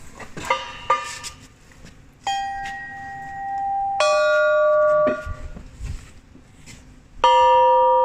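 Bells struck one at a time: two light taps, then three separate strikes that ring on, each bell pitched lower than the one before. The middle bell is stopped after about a second.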